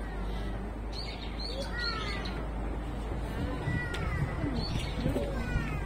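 Birds calling, a few short downward-sweeping calls repeated every second or two, over a low steady hum.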